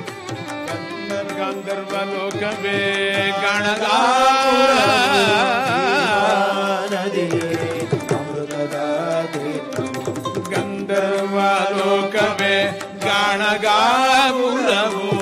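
Indian devotional song: a solo voice sings long, wavering ornamented notes over light percussion.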